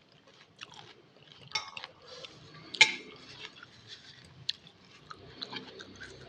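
A person chewing and biting instant noodles in chicken broth: irregular wet mouth clicks, with one sharper bite a little under three seconds in.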